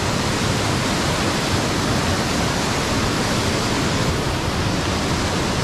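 Small mountain waterfall rushing close by: a loud, steady noise of falling water.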